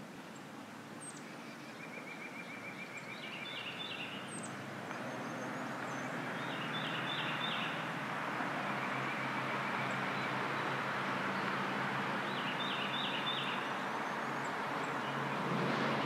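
A songbird repeats a short phrase of three quick rising notes every few seconds, over a rushing background noise with a low hum that swells over the first several seconds and then holds steady.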